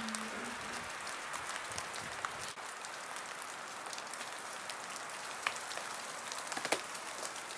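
Steady, light rain-like patter of falling wet snow, with a few faint ticks in the second half.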